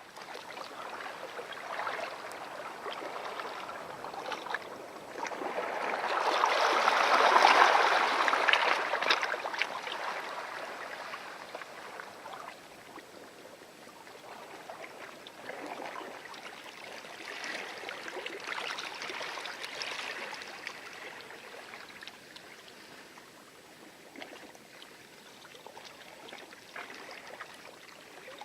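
Light waves lapping and washing on a coral shore on the lagoon side of an atoll. The loudest wash comes about seven seconds in, with a smaller one near the middle.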